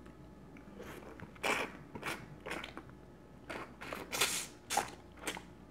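A person eating seafood close to the microphone: wet chewing and crunching in irregular bursts, roughly one every half second to second.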